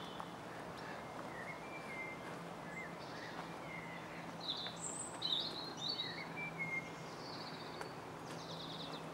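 Small birds chirping and whistling in short phrases, with a busier run of calls about halfway through. A faint steady low hum lies underneath.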